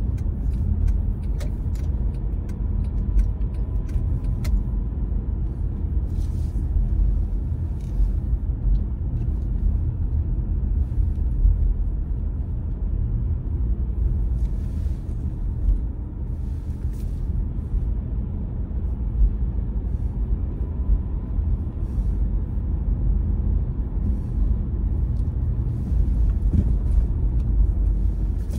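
Car driving on a road: steady low rumble of engine and tyres, with short swishes of hiss now and then.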